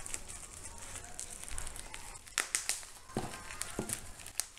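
Taped plastic bubble wrap crinkling and crackling as hands pull it off a cardboard box, with a cluster of sharper crackles about halfway through and a few more near the end.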